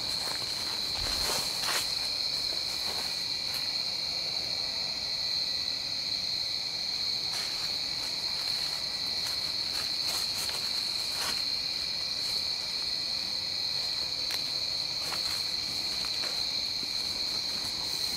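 Steady high-pitched chorus of night insects calling together without a break, with occasional footsteps crunching on a leaf-littered trail.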